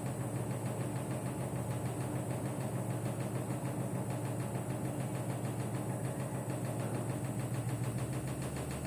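Samsung front-load washing machine running, a steady low motor hum with a thin high whine above it.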